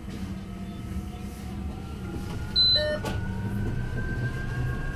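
Heuliez GX337 E electric bus's traction motor whining and slowly rising in pitch as the bus accelerates, over a low road rumble. A short, loud high-pitched beep sounds a little past halfway.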